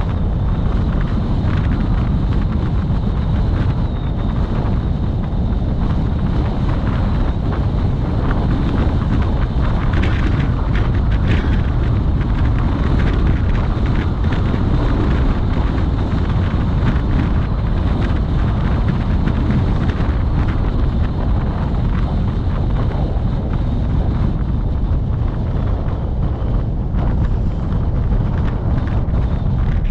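Steady low rumble of wind buffeting the microphone on a moving vehicle, mixed with road noise.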